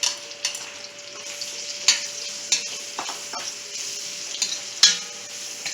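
Chopped onion sizzling in hot oil in a pot, with a steady hiss, while a spoon stirs it, clicking and scraping against the pot several times; the loudest knock comes near the end.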